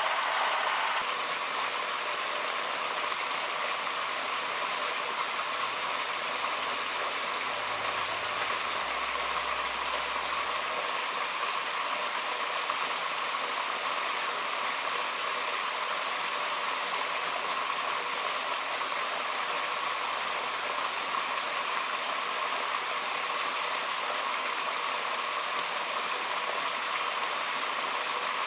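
Steady rushing of a mountain stream, an even hiss of running water with no breaks, easing slightly about a second in.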